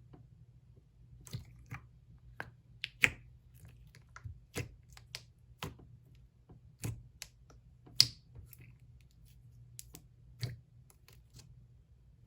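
Thick, glossy slime with boba beads being squeezed and pressed by hand, giving irregular sharp clicks and pops, one or two a second. The loudest pops come about 3 and 8 seconds in.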